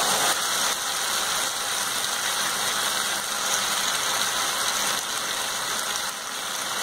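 Raw chicken pieces sizzling in hot onion-tomato masala in a non-stick kadai, a steady, even sizzle.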